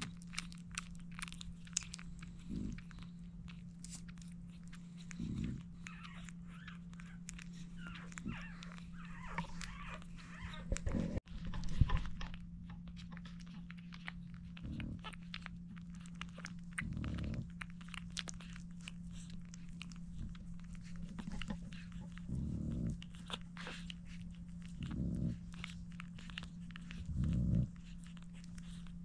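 Newborn French bulldog puppies suckling at their mother's teats: many small wet clicks and smacks from the nursing mouths, with soft low thumps every few seconds and a steady low hum underneath.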